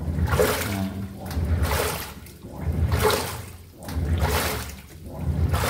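Panasonic 6.5 kg top-loading washing machine churning its tub of water, with a motor hum under the sloshing. The sound rises and falls about every 1.3 seconds. It is running at full speed on a freshly replaced drive belt, where the old loose belt had left it slow.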